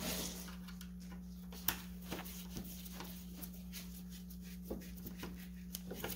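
Light clicks and taps of a screwdriver and gloved hands working on plastic and metal parts, with one sharper click about a second and a half in, over a steady low hum.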